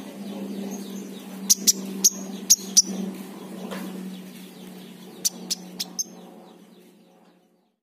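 Caged king konin giving sharp, short chip calls in small clusters, about ten in all, over a steady low hum. The sound fades out near the end.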